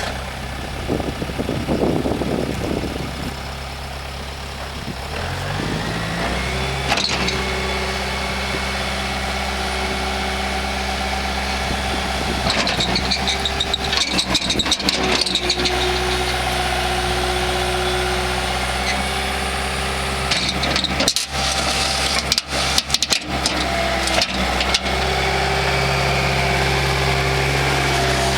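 2007 Bobcat S330 skid steer's diesel engine just after starting, running rough for the first few seconds, then rising in speed about five seconds in and settling into steady running.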